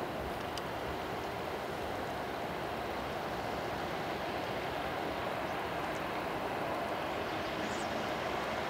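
Steady outdoor background noise, an even rushing hiss with no distinct events, and a faint high chirp near the end.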